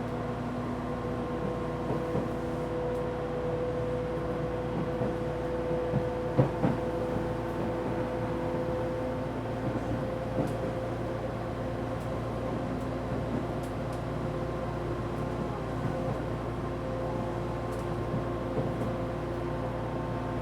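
Running sound inside a motor car of an Odakyu 1000-series electric train with Mitsubishi GTO-VVVF inverter traction, at a steady speed. A steady rumble carries several held tones from the traction equipment and the car's air conditioner, and there are a couple of short knocks about six seconds in.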